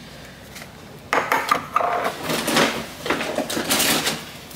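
Groceries being handled on a countertop: a second or so of quiet, then about three seconds of rustling and clattering with many small knocks as items are moved and set down.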